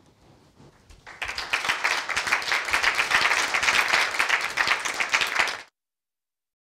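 Small audience applauding, a dense patter of clapping that starts about a second in and is cut off abruptly near the end.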